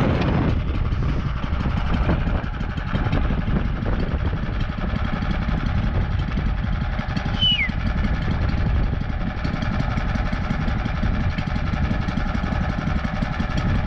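The 20 hp Lifan engine on a homemade snow vehicle idles steadily while the vehicle stands still. About halfway through, a single short, falling squeak is heard.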